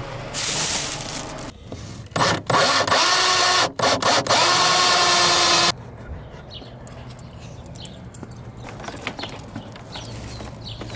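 Power drill running in two bursts, a short one and then one of about three and a half seconds that cuts off suddenly, as it bores through wood. Quieter rustling and clicks of cable handling follow.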